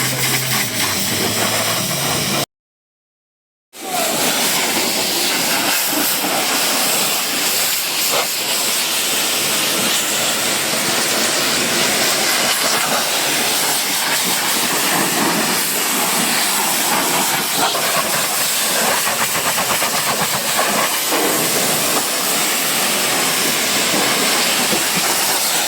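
High-pressure water spray from a pressure washer hissing steadily against a car's bodywork. It cuts out completely for about a second near the start, then resumes.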